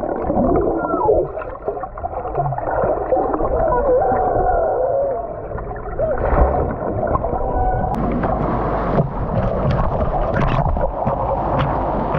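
Muffled underwater gurgling with wavering, warbling tones, picked up by an action camera held underwater in a pool. A few sharper clicks come in near the end.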